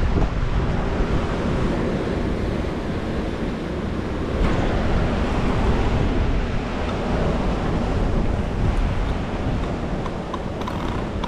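Wind buffeting the microphone over the steady wash of choppy surf breaking on the rocks.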